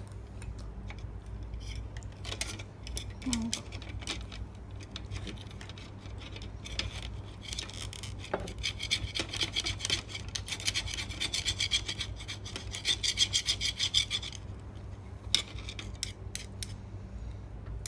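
Metal spoon scraping against a steamed mussel shell: a fast run of rasping strokes through the middle part, amid scattered clicks of utensils on dishes. A faint steady low hum runs underneath.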